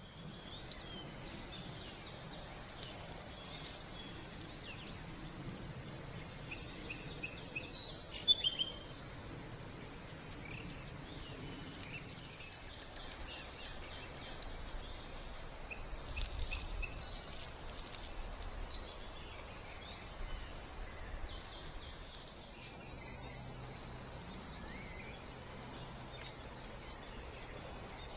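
Songbirds singing and calling over a steady background hiss, with the loudest song phrases about eight seconds and about sixteen seconds in.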